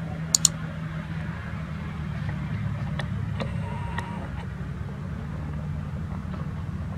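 A steady low engine drone, with two sharp clicks about half a second in.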